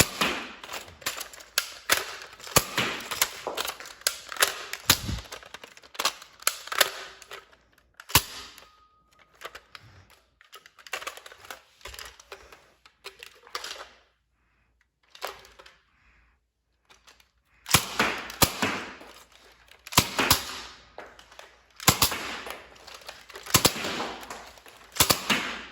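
Nerf foam-dart blasters being fired over and over: clusters of sharp snapping shots and mechanical clacks, packed close together, with a near-quiet pause around the middle before more loud volleys.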